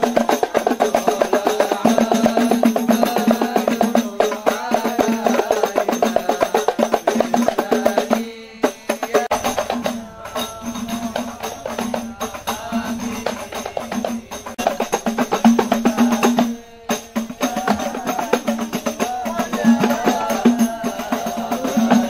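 Music with fast, dense hand percussion, tambourine-like jingles and drums, under a melody. It breaks off briefly twice.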